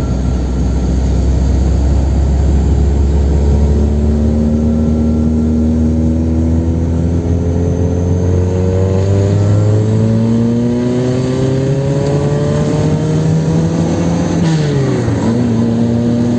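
Chevrolet Kadett 1.8's four-cylinder petrol engine under hard acceleration, its note climbing steadily for about ten seconds, then dropping sharply near the end as it shifts up a gear and pulls on.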